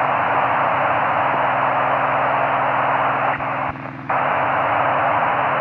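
Loud FM radio static hissing from a 145 MHz satellite downlink received on a Kenwood TS-790E, with a steady low droning tone underneath. The hiss dips briefly about three and a half seconds in.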